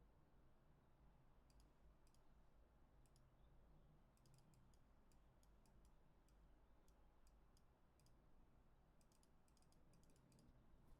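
Near silence with faint, scattered computer mouse clicks, some in quick runs.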